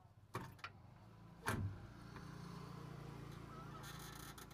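Sharp metal knocks from hand work at a car's brake pedal linkage under the dashboard, three in the first second and a half, followed by a faint steady low hum.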